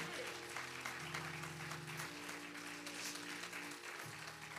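Congregation applauding, a fine patter of hand claps, over sustained keyboard chords that change every second or two.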